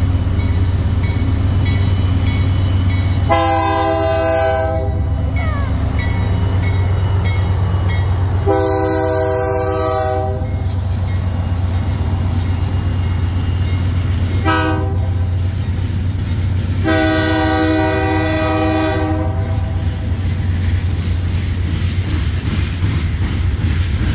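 BNSF diesel freight locomotive sounding its multi-note air horn in the grade-crossing pattern, long, long, short, long, over the steady low rumble of its engine. Near the end the freight cars roll past with a rhythmic clicking of wheels over rail joints.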